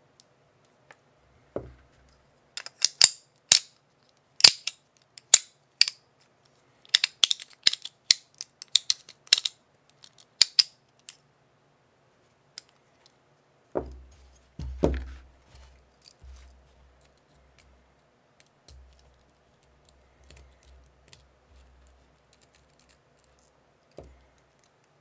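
Battle Master stainless steel cocking fidget slider being worked by hand: a run of sharp metallic clicks and snaps, some in quick pairs and clusters, over the first ten seconds or so. Then come a couple of duller knocks and soft handling noise.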